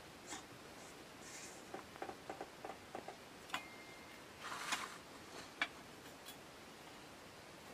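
Faint clicks and light metal taps as a brass Optimus 1200M kerosene lantern is handled by its top cap: a quick, uneven run of small ticks, a brief rustle, then one sharper click a little past the middle.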